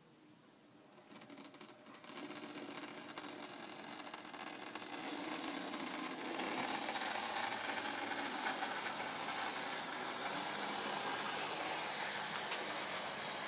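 Lima OO gauge Class 55 model locomotive's pancake motor and gearing whirring as it pulls away under DCC control, its wheels running on the rails with coaches behind. The sound starts about a second in, grows louder over the next few seconds, then runs steadily.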